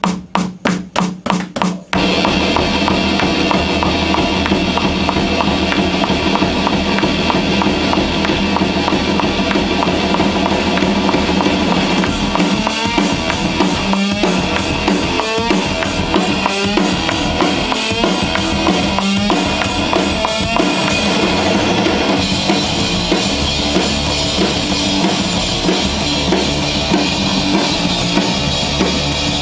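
Rock band music led by a full drum kit: about eight even strikes, some four a second, count it in, then the full band comes in about two seconds in with a steady drum beat.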